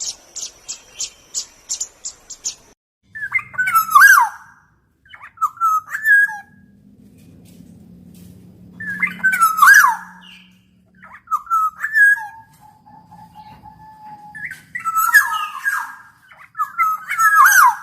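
Birds calling: first a rapid series of short, high-pitched chirps, about five a second. After a short break, a different bird gives loud, repeated call phrases of whistled notes that slide downward in pitch.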